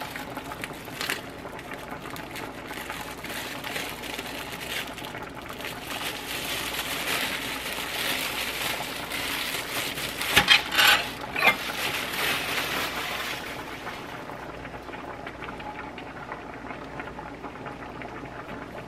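A plastic bread bag crinkling and rustling as a loaf of Italian bread is handled and pulled out of it, loudest around ten to eleven seconds in. Under it, a steady bubbling from a pot of spaghetti boiling on the stove.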